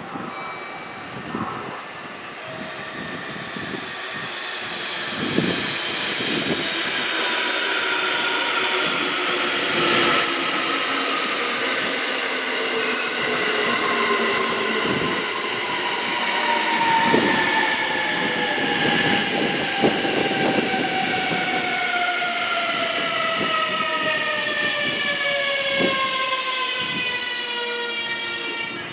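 JR Kyushu 811 series electric multiple unit braking into a station: its traction motor and inverter whine falls steadily in pitch, several tones gliding down together, over the rumble of wheels on rail with a few clicks.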